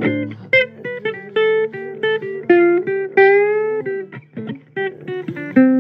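Blues guitar playing a run of single plucked notes between sung lines, with one note bent upward about three seconds in.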